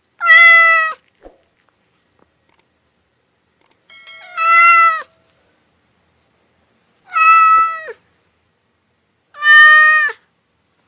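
A domestic cat meowing four times, each meow a little under a second long and fairly level in pitch before dropping at the end, with pauses of two to three seconds between them.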